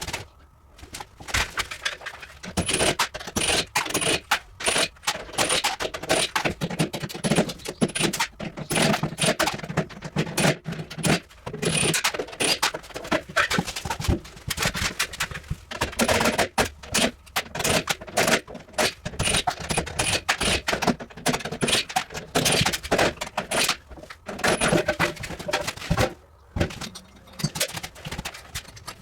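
Irregular, rapid metallic clinking, knocking and scraping of tools and parts being handled during hands-on dismantling work.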